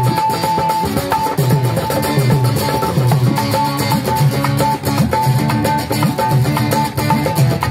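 Instrumental passage of a worship song, driven by a dholak drum beat. The low strokes bend in pitch, with a high note repeating steadily above.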